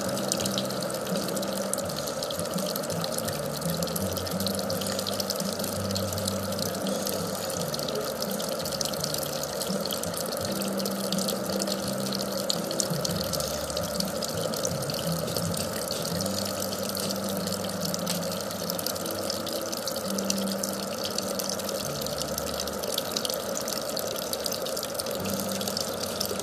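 Steady splashing and pattering of falling water, thick with fine drips, with a faint low hum underneath that shifts pitch now and then.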